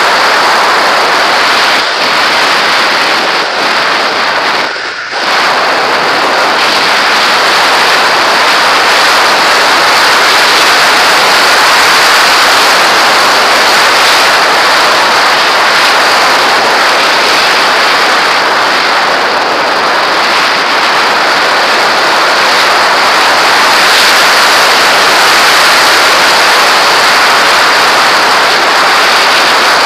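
Steady rush of wind over a camera mounted on the nose of a fast-flying radio-controlled model aircraft. The noise dips briefly about five seconds in.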